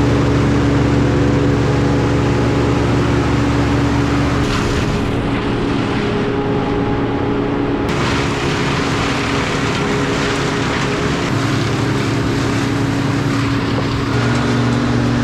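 An engine running steadily at a constant speed. Its low note changes about four seconds in, and its pitch steps up slightly near the end.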